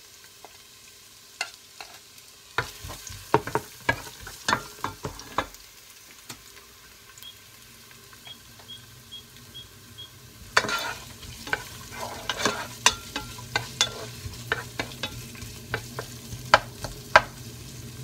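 Wooden spatula knocking and scraping in a nonstick pot as chopped onion and garlic fry in olive oil. Midway there are about six short electronic beeps from the induction hob's touch controls being pressed. After that the sizzle grows louder, with a low hum under it.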